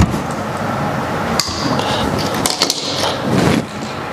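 Scattered clicks and scraping as a ground wire is handled and fitted to an electrical outlet's ground terminal, with the loudest scrape about three seconds in.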